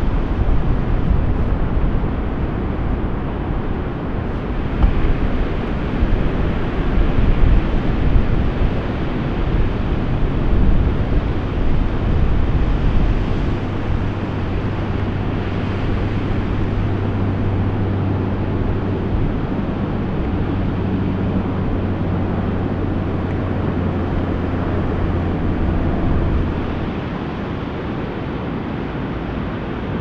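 Ocean surf breaking and washing ashore, with wind buffeting the microphone in gusts. A steady low hum joins about twelve seconds in and stops a few seconds before the end.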